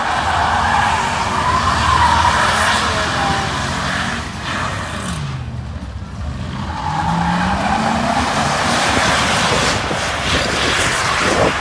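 Pickup truck doing donuts: tires squealing continuously on the pavement while the engine revs, dropping in pitch about halfway through and climbing again a couple of seconds later.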